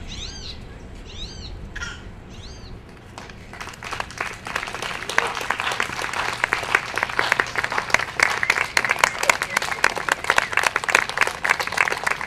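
A few short arching bird calls, then audience applause that starts about three and a half seconds in, builds and keeps going.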